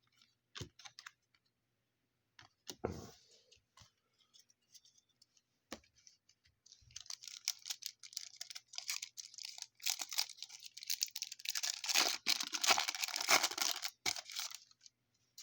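Trading cards and their foil pack wrapper being handled. Scattered light clicks and taps come first, then from about seven seconds in a dense crinkly rustle that stops shortly before the end.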